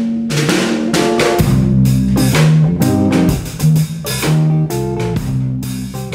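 Background music with guitar over a drum beat.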